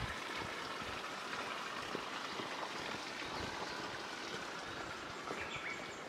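Footsteps on an asphalt road over a steady outdoor hiss, with a short bird call near the end.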